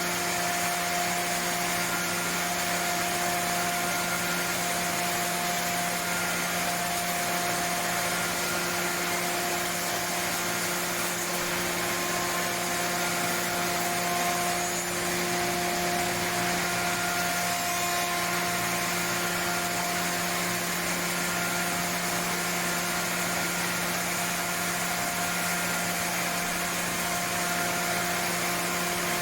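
SAOMAD Woodpecker Just 3500 CNC woodworking machining centre running steadily: a constant motor hum and whine over an even rush of air. One of the tones waxes and wanes every second or two.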